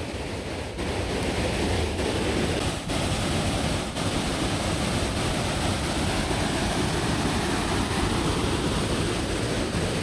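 Waterfall and river cascade rushing steadily, an even roar of falling water.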